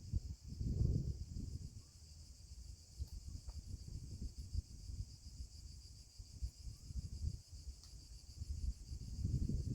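Steady insect chorus: a continuous high-pitched shrill hum with a fast pulsing texture. Beneath it is an irregular low rumble that swells about a second in and again near the end.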